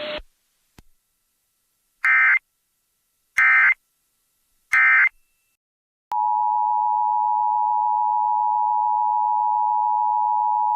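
Emergency Alert System broadcast signals: three short, harsh digital SAME data bursts about a second and a half apart, then a steady, unbroken EAS attention tone starting about six seconds in.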